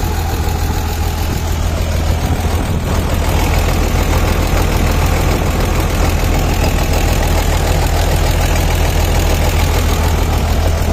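Ideal combine harvester's diesel engine running at a steady speed, heard up close: a loud, even low drone.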